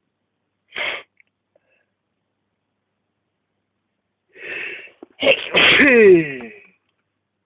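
A person sneezing from sniffed tobacco snuff. There is a brief sharp breath near the start, a noisy in-breath about four seconds in, then one loud sneeze whose cry falls in pitch.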